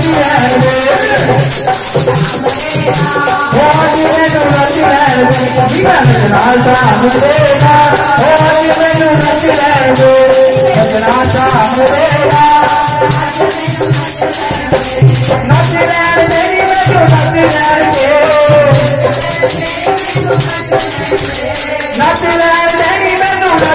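A loud Hindu devotional song to the mother goddess: a melody with a gliding, sung line over a steady beat, with a shaker rattling throughout.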